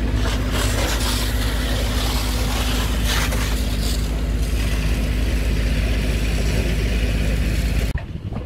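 A fire hose's water jet hissing onto burning timbers amid steam, over the steady hum of an engine. The sound cuts off abruptly near the end.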